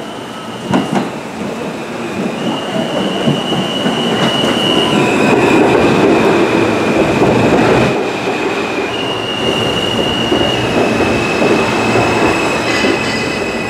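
Stainless-steel NYC subway train running into the station alongside the platform: a loud rumble of wheels on rail that swells to its peak about halfway, with high metallic squeals that shift pitch as it goes. Two sharp clacks about a second in.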